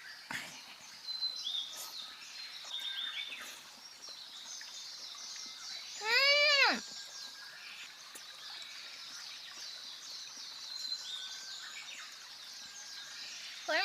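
Faint birds chirping over a quiet background hiss. About six seconds in there is one short, loud, high-pitched call that rises and then falls.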